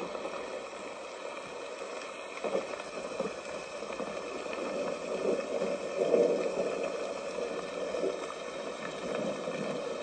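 Homedics white noise sound machine playing its recorded rain sound: a steady hiss of falling rain.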